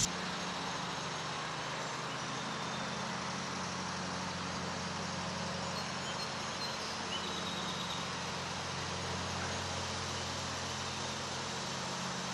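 A motor vehicle engine running steadily: an even low hum with a hiss over it.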